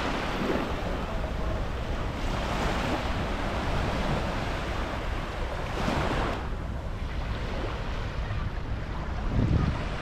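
Sea surf washing onto a sandy beach, swelling twice, about two and six seconds in, with wind rumbling on the microphone.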